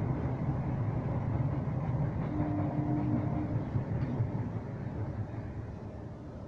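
A train passing close by: a steady low rumble that fades away toward the end, with a brief steady tone about two and a half seconds in.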